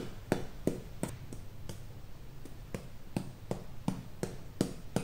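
Uchiko powder ball tapped along a steel wakizashi blade: light, even taps, about three a second, dusting the blade with fine polishing powder after sharpening.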